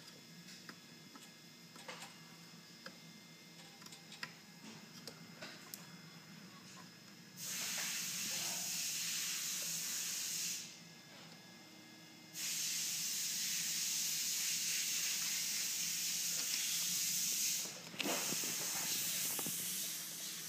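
Light clicks and taps of hand tools, then a steady spraying hiss about three seconds long, and another about five seconds long, followed by a shorter one near the end.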